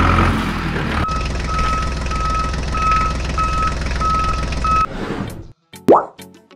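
Heavy vehicle engine running, with a reversing alarm beeping about seven times, about twice a second, both stopping abruptly near the end. A short rising 'plop' follows.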